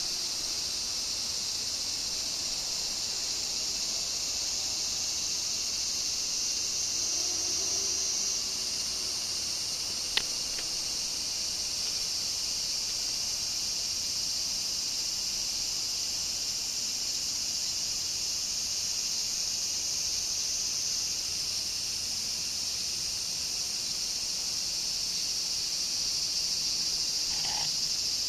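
Steady high-pitched drone of an insect chorus, with a single sharp click about ten seconds in and a brief rustle near the end.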